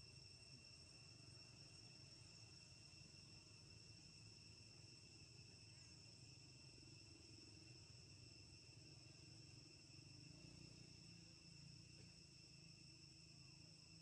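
Faint, steady high-pitched drone of insects singing, two unbroken high tones over a low rumble.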